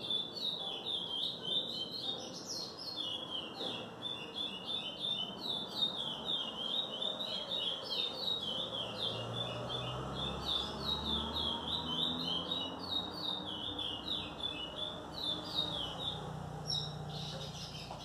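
Young caged songbird, still in brown juvenile plumage (a 'pardo'), singing a long, fast, unbroken song of rapid high chirping notes that breaks off near the end.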